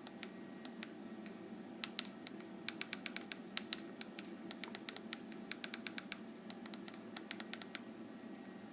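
Keypad buttons of an NEC DB4000 mobile phone being pressed, faint irregular clicks that come in quick runs as text is keyed in.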